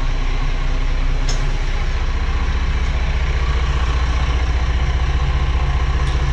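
Cummins QSC six-cylinder marine diesel engines running steadily with an even, fast low pulse, heard through the boat's hull and cabin.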